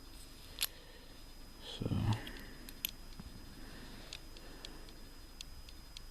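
Small metal clicks and taps from a padlock and keys being handled, with a dull bump about two seconds in and a few fainter ticks later.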